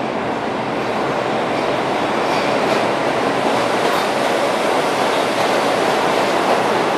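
GE diesel locomotive leading a subway work train into an underground station and passing close by: a loud, steady running noise of locomotive and cars that grows louder over the first few seconds and then holds.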